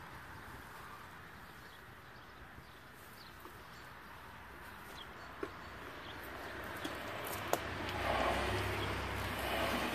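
Manual wheelchair pushed across grass toward the microphone: faint rolling and a few sharp clicks, getting louder about eight seconds in as the chair arrives close by.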